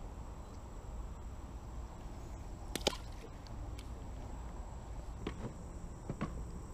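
A single sharp slap about three seconds in, with two fainter taps later, over a low steady rumble.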